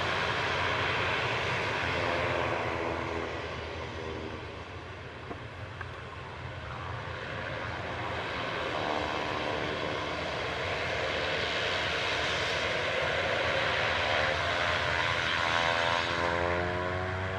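Twin PT6A turboprop engines of a Beechcraft King Air C90GTx running at low taxi power: a steady turbine whine and propeller hum with a wavering, beating tone. It eases off a few seconds in and grows louder again through the second half.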